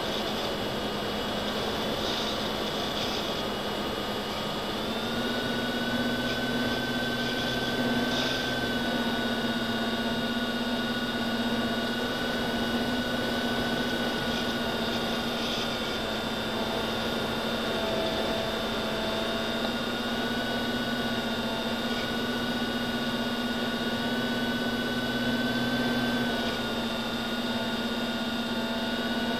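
Electric motor whine and wind rush picked up by the onboard camera of an FPV model aircraft in flight. The whine holds a steady pitch, stepping up slightly about five seconds in.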